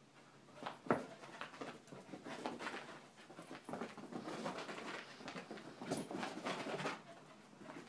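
A puppy and a small chihuahua playing, making dog sounds and scuffling in a string of short bursts, with a sharp knock about a second in.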